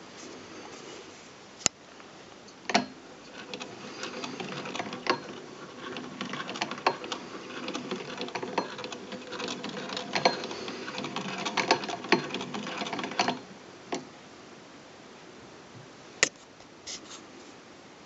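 1920s Jones hand-crank sewing machine mechanism being turned by hand, clattering with fast irregular ticks for about ten seconds. A few separate sharp clicks come just before and after.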